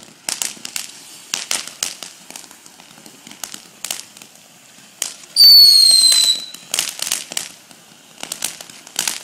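Consumer fireworks crackling and popping irregularly, with a loud, high whistle that falls slightly in pitch for nearly a second about five seconds in.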